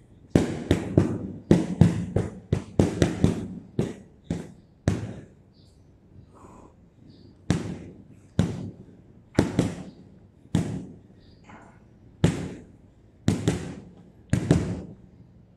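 Boxing gloves punching a hanging heavy bag: a fast flurry of hits over the first five seconds, then single and double punches about a second apart.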